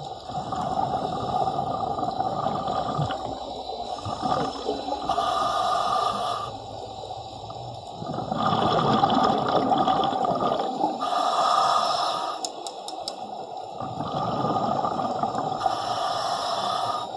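Diver breathing underwater through a full-face mask and regulator. A hiss on each inhale alternates with a rush of bubbling on each exhale, one breath roughly every five seconds.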